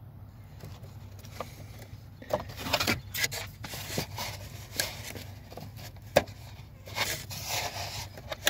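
Scattered clicks, knocks and scrapes of hand tools and parts being handled during work on the engine, over a faint steady low hum.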